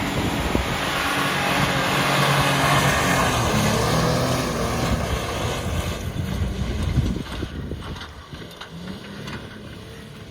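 Toyota Hilux engine working hard as the 4x4 ploughs through a muddy bog hole, with a heavy wash of splashing mud and water over the engine. About seven seconds in it eases off and goes quieter, leaving a lower engine tone and scattered knocks and clicks.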